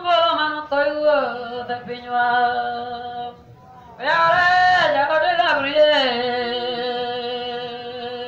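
A man's solo voice chanting a sung prayer unaccompanied, in two phrases of long held notes with a short pause about three and a half seconds in.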